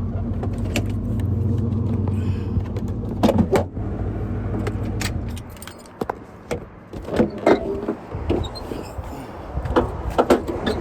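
Vehicle engine idling steadily, then shut off about five and a half seconds in, followed by a run of sharp clicks, light knocks and rattles.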